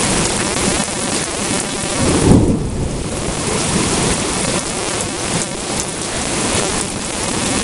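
Heavy rain falling steadily during a thunderstorm, with a brief low boom about two seconds in.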